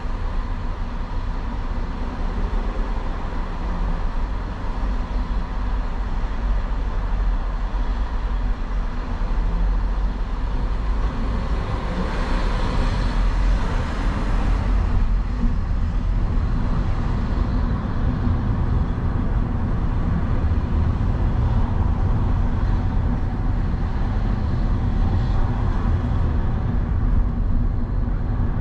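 Road traffic noise on a city street: a steady low rumble of engines and tyres, with a louder hiss swelling for a few seconds about twelve seconds in.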